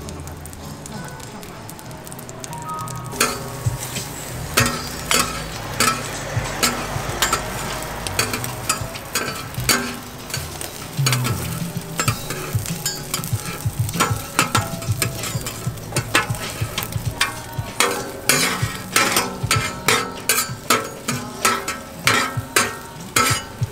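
Beef stir-frying in a hot pan, sizzling steadily. A metal spatula scrapes and clacks against the pan, more often in the second half.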